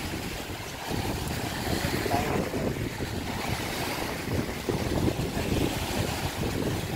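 Wind buffeting the microphone over the rush of fast, churning river water breaking against the bank.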